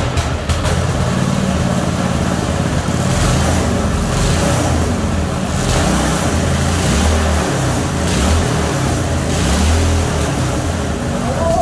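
Small single-cylinder 6.5 hp Branco gasoline engine of a horizontal long-tail boat motor running on the bench, revving up and down as its new cable throttle is worked.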